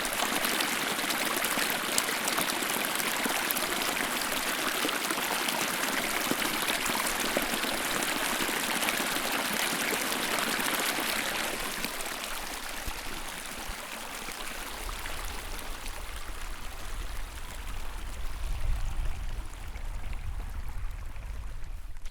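Small snowmelt stream running and trickling. The water sound thins out after about twelve seconds, and a low rumble comes in over the last several seconds.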